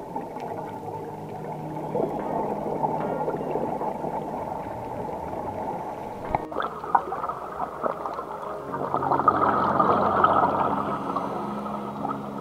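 Muffled underwater sound picked up through a dive camera's housing: a steady watery rush with the gurgle of a scuba diver's exhaled bubbles. It changes in tone about six and a half seconds in and swells louder for a few seconds after that.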